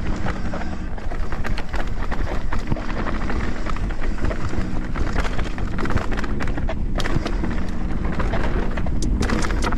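Mountain bike riding fast down a rough trail: a steady rumble of tyres and rushing air, with many sharp clacks and rattles as the bike bounces over rocks and roots.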